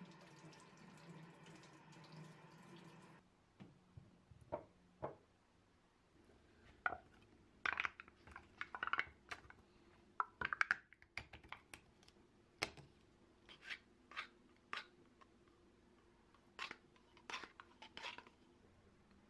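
Kitchen tap running water over blackberries being rinsed in a stainless sink, cutting off suddenly about three seconds in. Then sharp clicks and bursts of crinkling as the foil seal is peeled off a yogurt container, followed by scattered taps as yogurt is poured into a glass bowl.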